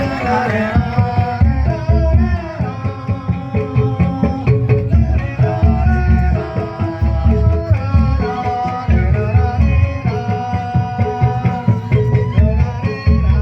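Band music with hand drums keeping a beat over a steady bass, and a melody line carried over the top.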